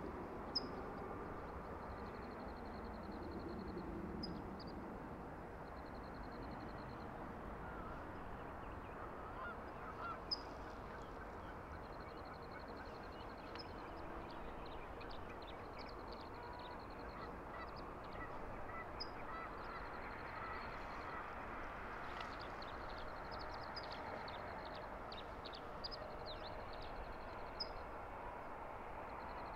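Faint outdoor ambience with distant honking calls now and then, goose-like to the tagger. Scattered short high chirps and a thin high trill come and go in bouts of one to a few seconds.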